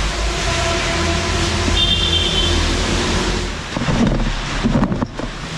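Wind buffeting the microphone over a motorbike engine running, as on a ride. There is a short high tone about two seconds in, and a few knocks near the end as the noise dips.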